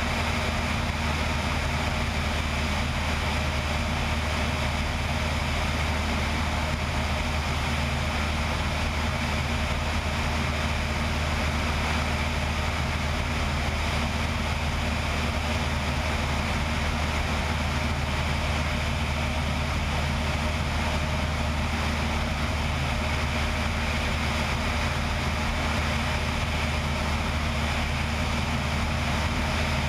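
Single-engine propeller plane in flight: a steady engine and propeller drone mixed with wind rushing over the wing-strut-mounted microphone.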